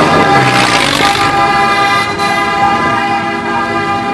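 A vehicle horn sounding in one long, steady blast, with a brief rush of noise about half a second in.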